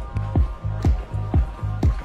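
Background music with a steady beat: a deep kick drum about twice a second over a bass line.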